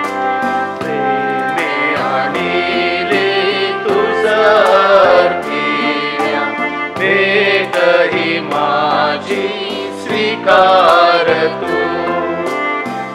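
A church hymn sung to keyboard accompaniment: held keyboard chords play alone at first, and the voices come in about two seconds in, singing long phrases with vibrato.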